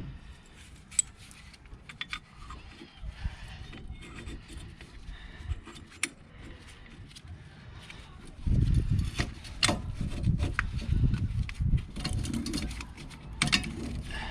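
Light clicks of tools being handled, then from about eight seconds in a louder, irregular low grinding and creaking in spells with clicks: a wind-back tool being turned against the brake caliper to push the piston back into its bore.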